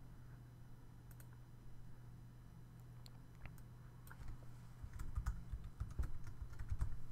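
Typing on a computer keyboard: a few scattered key or mouse clicks, then a quick run of keystrokes from about four seconds in, over a low steady hum.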